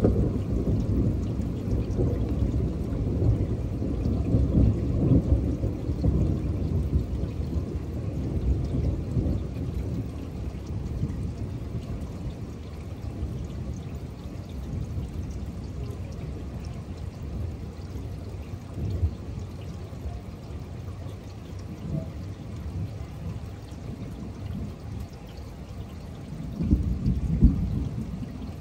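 Thunder rolling, loudest at the start and fading away over about ten seconds, with a second rumble of thunder near the end. Rain falls steadily underneath.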